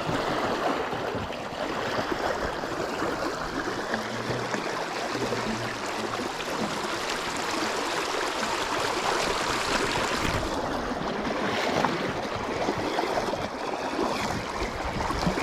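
Fast-running creek water rushing steadily.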